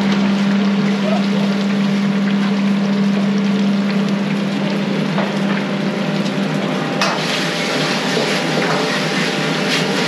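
Food deep-frying in a commercial fryer: the oil bubbling and crackling steadily, over a steady low hum that stops about seven seconds in. A single sharp click about seven seconds in.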